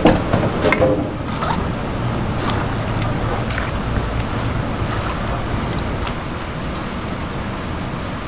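Wet squelching of blanched cabbage greens being hand-mixed with chili seasoning paste in a stainless steel bowl, over a steady low rumble, with a few louder knocks and squishes in the first second.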